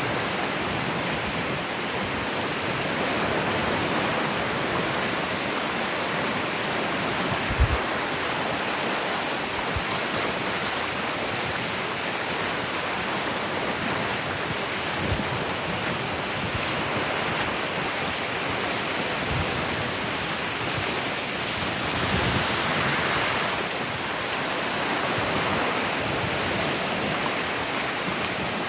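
Ocean surf washing onto a sandy beach: a steady hiss of breaking water that swells once about three-quarters of the way through, with a few soft low thumps.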